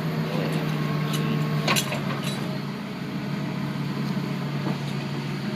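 Engine running at a steady idle, a low even hum, with a sharp tick about a second and a half in.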